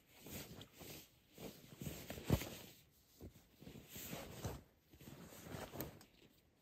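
Camping gear being handled and packed, rustling in irregular bursts, with a sharp knock a little over two seconds in.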